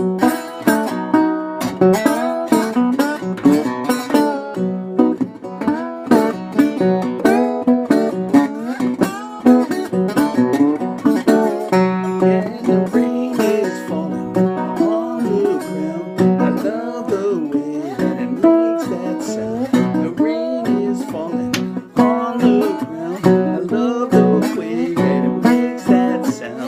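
Music played on a plucked string instrument, with a guitar-like sound: a quick run of picked notes and chords that changes pitch throughout.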